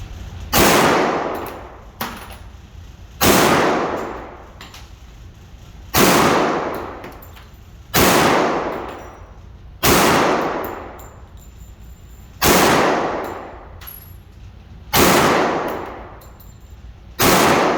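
Eight shots from a 10 mm pistol firing 180-grain rounds, slow and deliberate, about one every two to two and a half seconds, each with a long echoing tail.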